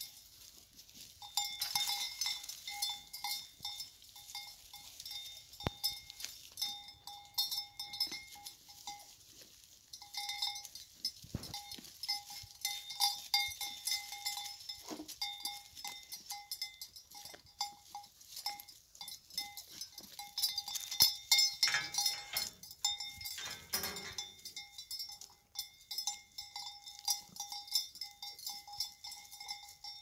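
A metal goat bell clanking on and off as a goat moves its head while grazing, with short pauses. There is a louder, lower sound about three-quarters of the way through.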